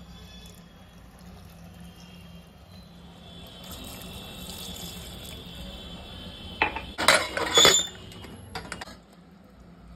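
Water poured into a steel pressure cooker full of curry, followed about seven seconds in by a few loud metal clanks as the cooker's steel lid is put on and locked, then a couple of lighter clicks. A steady low hum runs underneath.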